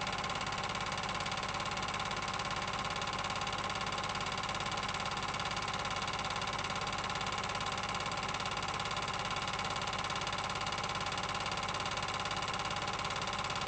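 Film projector running with a steady whirr and a fast, even mechanical flutter.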